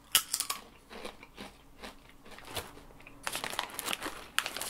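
Crisp crunching as crunchy pepper-flavoured snack rings are bitten and chewed, a string of separate sharp crunches. Near the end comes a denser run of crackling as a hand rummages in the thick foil snack bag.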